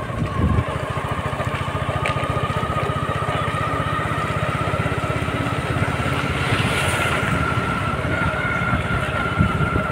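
A small engine running at a steady speed with even, rapid firing pulses, and a faint whine that rises slowly in pitch.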